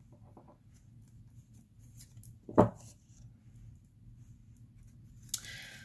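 A rough crystal stone set down on a wooden tabletop with a single sharp knock about two and a half seconds in, amid faint handling clicks. A short papery rustle near the end.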